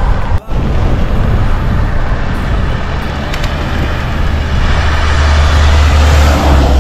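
Strong wind rushing over the microphone: a loud low rumble with a hiss over it, cut for an instant about half a second in and swelling toward the end.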